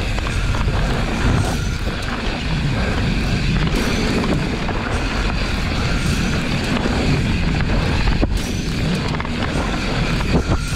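Mountain bike ridden along a dirt trail: a steady, noisy rumble of tyres and air, with the bike rattling and a few sharp knocks over bumps, one about eight seconds in and another near the end.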